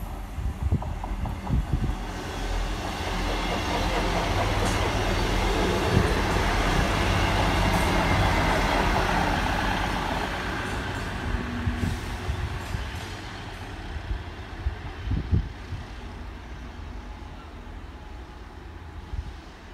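Class 158 diesel multiple unit in GWR green passing along the platform, its engines and wheels on the rails swelling to a peak and fading as it moves away. A few sharp clicks of the wheels over rail joints sound as it goes.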